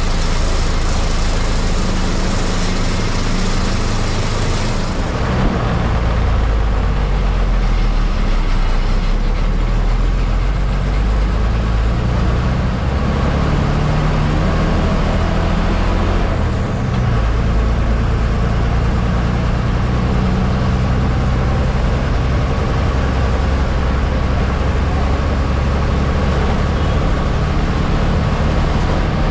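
MSRTC bus engine running under steady road noise, heard from inside the bus on the move. The engine note climbs for a few seconds and drops back a little past the middle.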